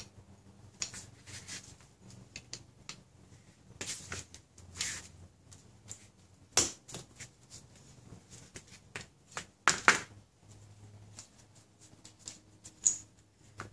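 Scattered clicks and rustles of a wrench and gloved hands working the pressure switch loose from a power steering high-pressure hose, with two sharper clicks in the second half.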